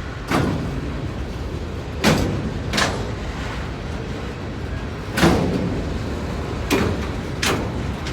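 CSX local freight train rolling past slowly: a steady low rumble broken by six sharp knocks at uneven intervals, some coming in pairs, the loudest about five seconds in.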